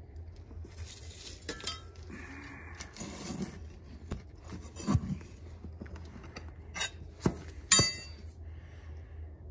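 A metal tool digs and scrapes through a tub of annealing ash, clinking several times against metal. The last and loudest clink, near the end, rings briefly.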